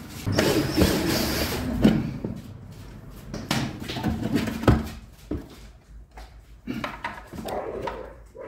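Handling noises of car trim being taken apart: rustling and scraping for the first couple of seconds, then a few sharp plastic clicks and knocks as the rear tail-light unit is worked loose and pulled out.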